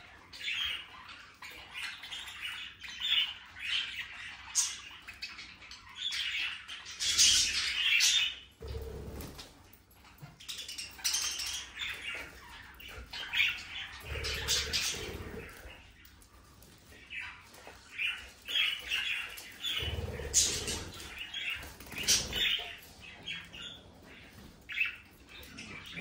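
A flock of budgerigars chirping and chattering without pause. Several louder rushes of wingbeats break in, about a third of the way in, around halfway, and twice near the end.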